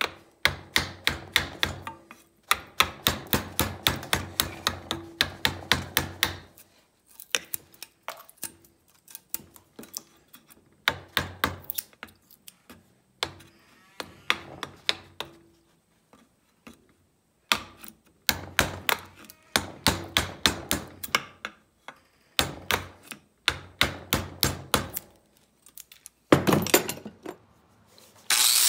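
Wood chisel cutting away excess wood from wooden handle scales epoxied onto a knife tang. It makes runs of sharp knocks, several a second, broken by short pauses.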